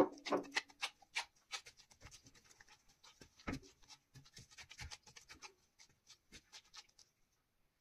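Gloved hands kneading soft yeasted dough in a glass bowl: an irregular run of short sticky squelches and clicks, with louder slaps at the start and about three and a half seconds in, stopping shortly before the end.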